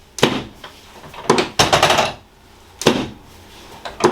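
A series of short bursts of rapid knocking, about one every second and a bit, each lasting under a second.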